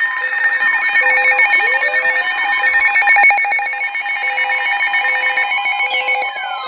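Several emergency alert tones for a flash flood warning going off at once: steady and pulsing electronic beeps, a fast warbling trill, and a low tone beeping about once a second. A rising sweep comes about a second and a half in, and falling siren-like sweeps come near the end.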